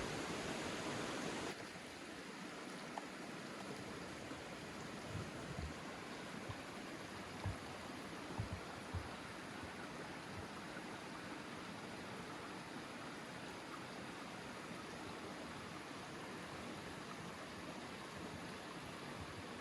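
Steady rushing noise that drops a little about a second and a half in, with a few faint low thumps between about five and nine seconds in.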